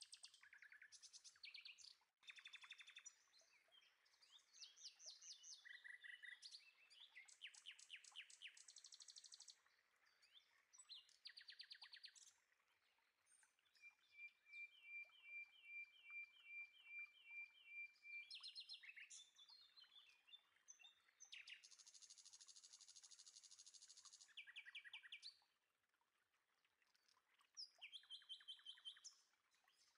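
Quiet birdsong: several birds chirping and trilling in turn, with a run of evenly repeated notes at about three a second midway through.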